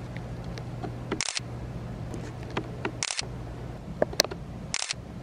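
Three camera shutter clicks, about two seconds apart, over a low steady hum.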